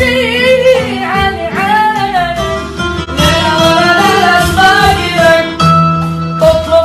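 Arabic song: a solo voice singing a melismatic, ornamented melody over instrumental accompaniment.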